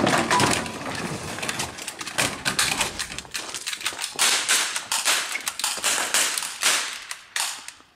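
Gunfire: a rapid, irregular string of sharp gunshot bangs that thins out and fades near the end.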